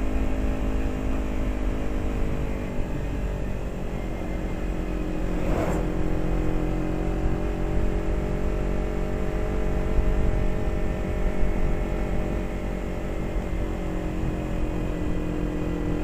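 Motorcycle engine running steadily on the move, with low wind rumble on the rider's microphone; its pitch shifts slightly a few seconds in, and there is a short rush of noise about six seconds in.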